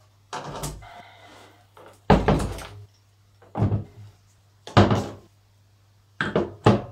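Angle grinders being set down one after another on a tiled tabletop: about six heavy thunks, a second or so apart, some followed by a short clatter.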